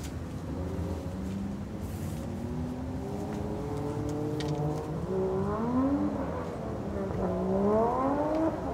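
Airbus A330-300's jet engines running, heard across the airfield: a steady low rumble with whining tones that waver and rise, growing louder toward the end.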